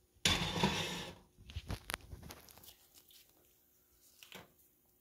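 Crispy fried fish crunching: a sudden, loud tearing crunch lasting about a second, then a few light clicks and taps.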